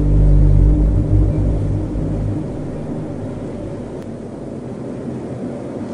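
Deep low rumbling sound effect with a steady low hum in it, swelling in at once and easing off after two or three seconds to a quieter low rumble.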